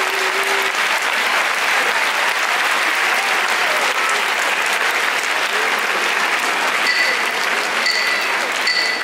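Crowd of spectators applauding steadily, with three short high tones about a second apart near the end.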